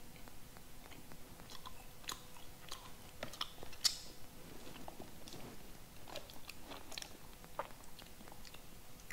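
A person biting into and chewing a dry chestnut cake close to the microphone: scattered small crackles and crumbly clicks, with one sharper crunch about four seconds in.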